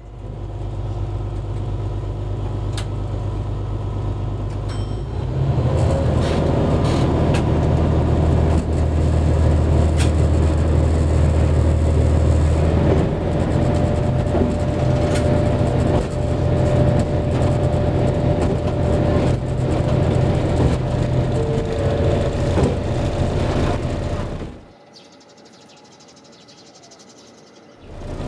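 A vehicle engine running with a steady low hum. About five seconds in it gets louder and its note shifts, and it cuts off suddenly near the end.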